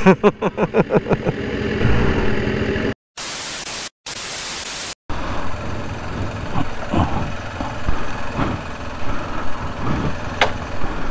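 Sportbike engine running at low revs as the motorcycle rolls in and stops, with evenly spaced pulses fading over the first few seconds. About three seconds in comes roughly two seconds of loud even hiss, cut by short dropouts to silence, which is a recording glitch.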